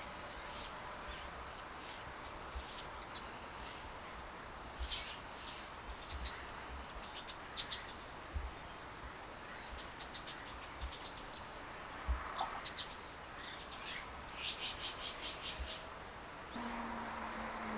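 Small birds chirping in scattered short, high calls, with a quick run of repeated notes about two-thirds of the way through. Near the end a steady low hum comes in.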